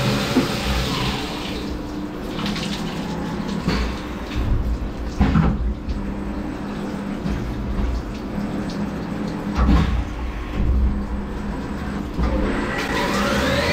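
Syil X7 CNC vertical mill with flood coolant splashing over the work, then a few clunks as the tool carousel swaps tools, and near the end the spindle spinning up with a rising whine.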